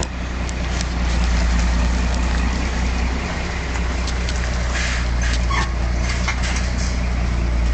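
Scania R420 truck's straight-six diesel idling steadily with no muffler fitted, giving an open, unsilenced exhaust note.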